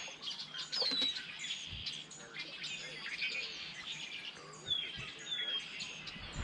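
Several birds chirping and calling, with many short high chirps and a few falling whistled notes. A couple of faint knocks sound under them.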